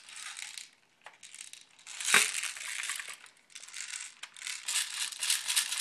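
Plastic airsoft BBs rattling and spilling out of a spring airsoft AK in a run of scattered patters, with one sharp plastic clack about two seconds in.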